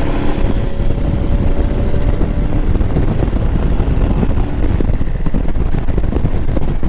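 Motorcycle riding at road speed: a steady engine note under heavy wind rumble, picked up by a microphone inside the rider's crash helmet.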